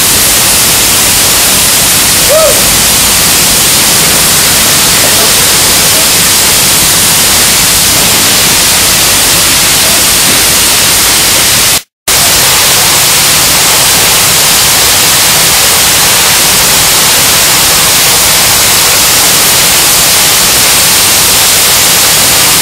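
Loud, steady hissing roar from a refinery fire fed by a ruptured high-pressure crude pipe, with fire hoses spraying water on it. It breaks off for an instant about halfway through.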